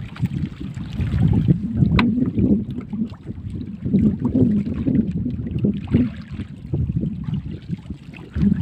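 Wind buffeting the microphone over water slapping against the hull of a small outrigger fishing boat, swelling and easing unevenly, with a few light knocks.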